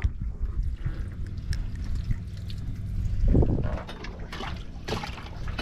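Water trickling and splashing around a small fishing boat, with a few small knocks, over a steady low rumble.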